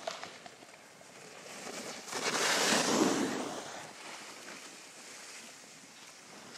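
Skis carving and scraping across packed snow as a skier turns past close by: a noisy whoosh that swells about two seconds in, peaks, and fades over a second or two.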